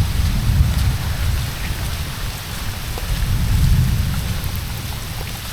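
Steady heavy rain falling, with a deep low rumble underneath that swells about half a second in and again near the middle.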